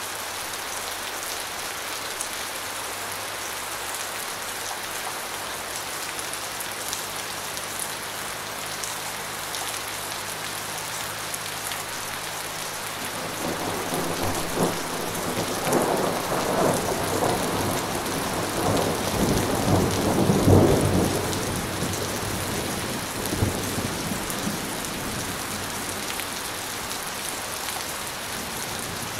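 Steady rain falling, with a roll of thunder that starts a little before halfway, builds to its loudest about two-thirds of the way in, and dies away a few seconds later.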